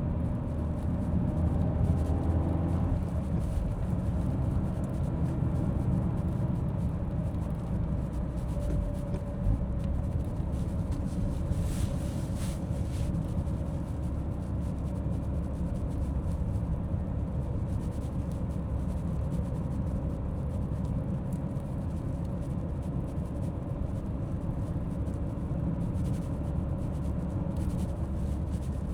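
A car driving on the road: steady low rumble of tyres and engine, with no suspension clunks on coilovers fitted with new top mount bearings.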